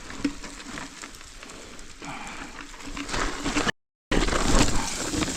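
Crunching and rustling of footsteps and a mountain bike being moved over loose dirt and dry brush on a steep trail. The sound breaks off for a moment about three-quarters of the way through.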